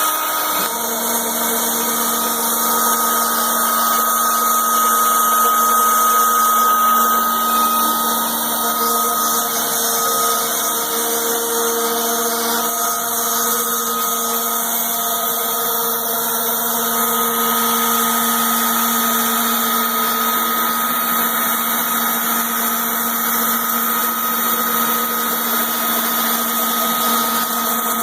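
CNC router spindle running steadily, a constant high whine with several held tones, typical of the machine surfacing its bed.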